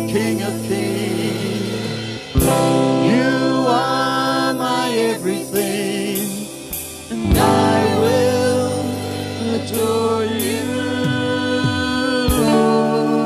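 Live church worship music: voices singing over a band's sustained chords, with sharp accents at several chord changes.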